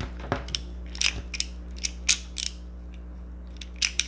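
Small plastic Transformers figure being twisted and folded by hand, its joints giving a string of sharp plastic clicks and ratcheting snaps, bunched in the middle and again near the end.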